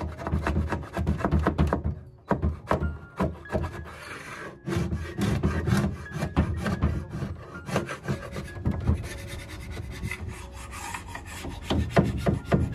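Hand tool shaving down a glued-in wooden repair piece: rough scraping strokes of a metal edge on wood, quick and irregular, with a couple of brief pauses.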